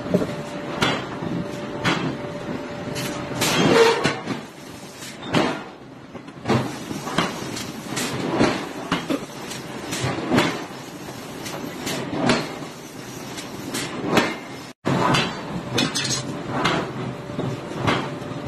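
Forge-shop noise: irregular metallic clanks and knocks, about one every second or so, over a steady workshop din. The loudest knock comes about four seconds in.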